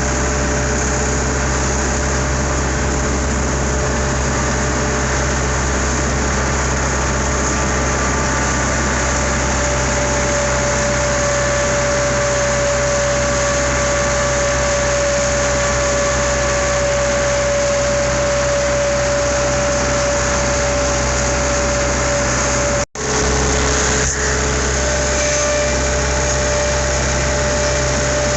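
Skid steer engine running steadily, with a steady whine over its drone. The sound cuts out for an instant about 23 seconds in, then carries on.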